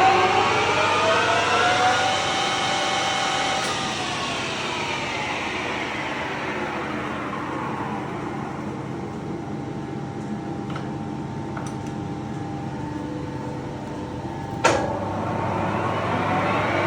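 The geared headstock of a Colchester Triumph 2000 lathe whining as the spindle comes up to speed. It holds briefly, then the whine winds down over a few seconds as the spindle coasts to a slower run. A sharp click comes near the end, and then the whine rises again as the spindle speeds back up.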